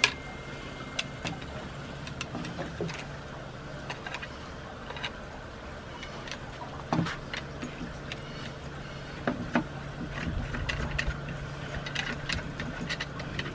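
Scattered clicks and light knocks of plastic and metal parts being handled as a pressure washer's metal lance is fitted into its plastic spray gun, over a steady low hum.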